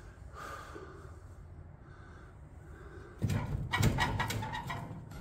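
Rusty car-body sheet metal clattering and scraping as a leftover frame-rail piece is worked loose. The rattle starts suddenly about three seconds in, after a faint stretch.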